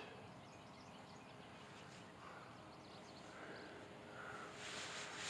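Quiet outdoor ambience with a few faint short calls in the middle. A soft hiss swells near the end.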